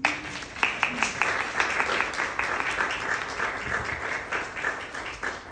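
Audience applauding: the clapping starts all at once, with sharp individual claps standing out, and eases off near the end.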